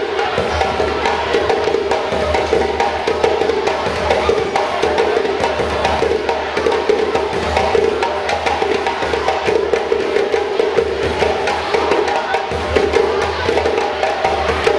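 Percussion music of drums played in a quick, dense rhythm, with a sharp knocking layer over a steady pitched backing.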